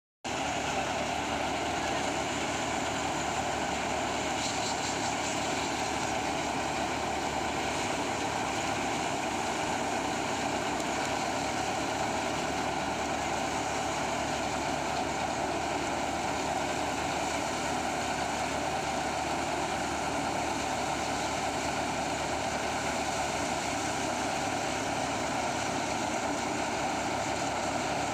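Tractor-driven paddy thresher running steadily while threshing rice: the tractor engine's drone mixed with the noise of the spinning threshing drum as sheaves are fed through.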